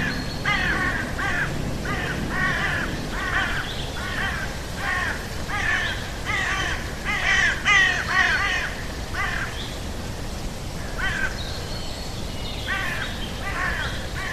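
Crows cawing in a long run of harsh calls, about two a second, with a short break about ten seconds in before the calls start again.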